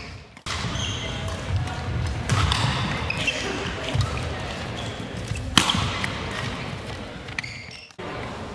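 Badminton rally: sharp cracks of rackets striking the shuttlecock, the loudest about five and a half seconds in. Between them, players' shoes squeak and their feet thud on the wooden court floor, ringing in the hall.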